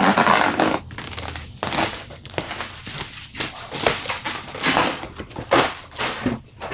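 Plastic wrapping film and cardboard packaging being torn open and pulled off a boxed roof window: irregular crinkling, rustling and crunching.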